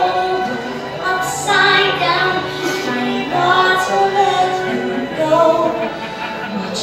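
A musical-theatre show tune: a female voice singing held, sustained notes over band accompaniment.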